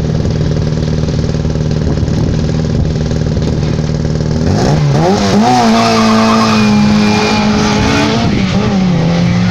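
Classic Mini race car's four-cylinder engine held at steady revs on the start line, then launching hard about four and a half seconds in: the revs climb quickly, drop at an upshift, climb and hold, and drop again at a second upshift as the car pulls away.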